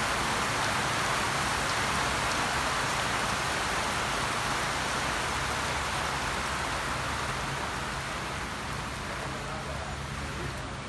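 Heavy rain falling steadily, easing a little toward the end, with a few louder irregular bumps in the last couple of seconds.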